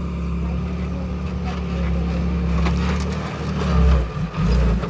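Bulldozer's diesel engine coming up to a heavy, steady low rumble as it works, louder about four seconds in, with a few sharp cracks over it.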